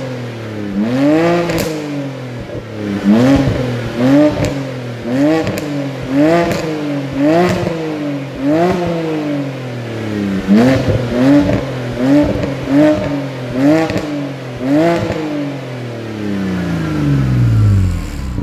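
BMW Z4 E89 3.0i's straight-six free-revved in quick blips, about one a second, each rising sharply and falling back, through the stock exhaust with a modified centre pre-silencer. Near the end one longer rev winds slowly back down toward idle.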